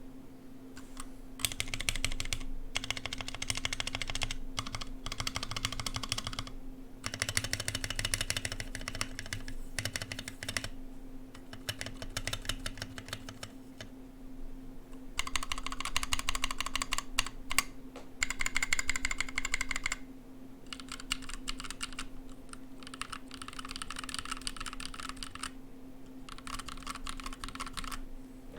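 60% mechanical keyboard being typed on fairly slowly: runs of key clacks broken by short pauses every few seconds, with a steady low hum underneath.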